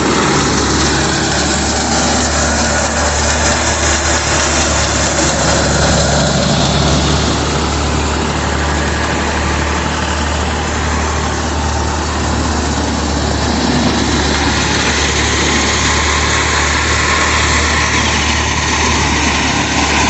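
Pammi wheat thresher running at full speed while wheat bundles are fed in. It makes a loud, steady mechanical din with a constant low hum from its drive underneath.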